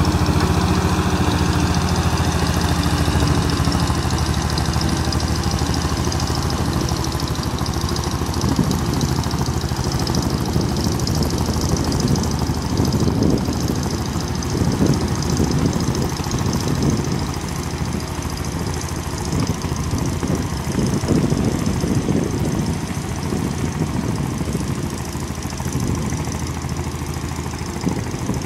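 A small aircraft tow tractor's engine running steadily as it tows a biplane, with small rises and falls in level.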